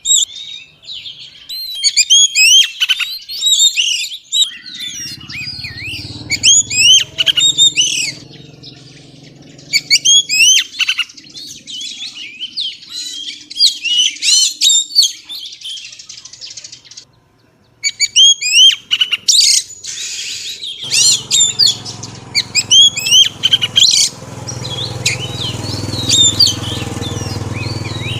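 Female oriental magpie-robin calling in quick runs of sharp rising and falling chirps and whistles, phrase after phrase with short gaps, with a brief pause about two-thirds of the way through. It is the female call that bird keepers play to stir a male into singing.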